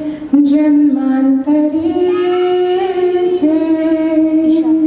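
A woman singing a Marathi song into a microphone, holding long notes that step up and down in pitch, with short breaths between phrases.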